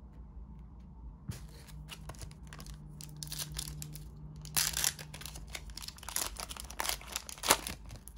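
Trading card pack wrapper being torn open and crinkled by hand: a run of crackles and rustles from about a second in, loudest about halfway and again near the end.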